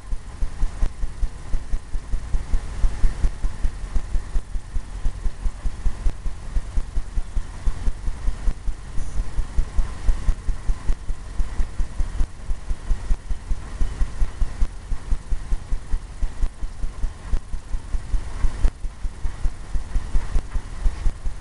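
Brush dabbing oil paint onto a stretched canvas: quick, even thumps about three a second as the canvas drums under each stroke.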